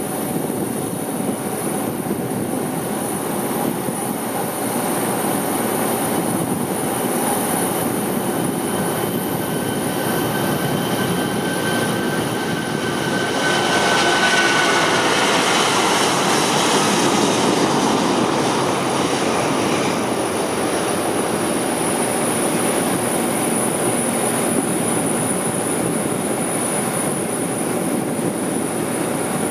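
Airbus A340-600's four Rolls-Royce Trent 500 jet engines at takeoff thrust during the takeoff roll: a steady roar that swells as the plane passes, about halfway through, with a high whine that drops slightly in pitch as it goes by.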